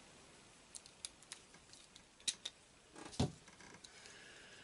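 A socket and wrench being handled: a few faint sharp clicks, then one duller knock about three seconds in.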